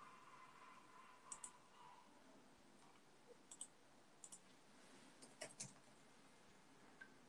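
Faint computer mouse clicks, about four pairs of quick clicks spread out.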